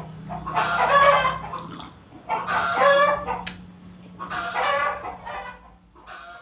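Rooster crowing: three long calls, each about a second, over a steady low hum.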